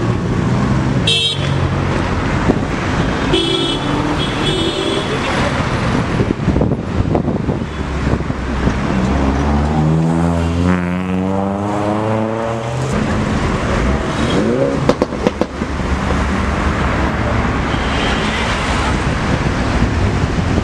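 Classic cars driving slowly past with engines running in traffic. Short car-horn toots come in the first few seconds, and around the middle one engine revs up, its note rising.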